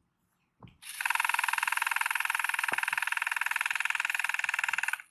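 Battery-powered electric blade motor of a small solar lawn mower spinning up and running: a high, steady whir with a fast even flutter. It starts about a second in and cuts off abruptly near the end.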